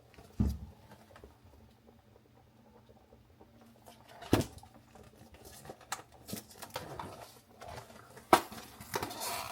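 Packets of instant mashed potato flakes being handled and poured into a pot of hot water, with packaging rustling. A dull thump comes just after the start, and two sharp knocks come about four seconds apart.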